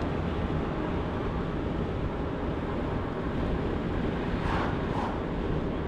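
Steady road and wind noise of a car driving.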